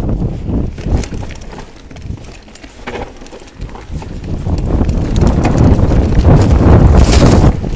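Focus SAM enduro mountain bike rattling and knocking as it rides over rough dirt singletrack, tyres and chassis rumbling, with the rumble growing loud in the second half as the trail gets rougher.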